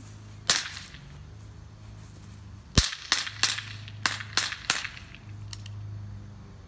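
Pistol shots as sharp cracks: one about half a second in, then the loudest near three seconds, followed quickly by about five more in a ragged string, and a faint one near the end.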